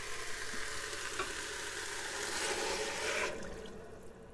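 Diced vegetables sizzling in an Instant Pot's inner pot on the sauté setting. About three seconds in, vegetable broth is poured in. The sizzle flares briefly, then dies away suddenly as the liquid covers the hot pot.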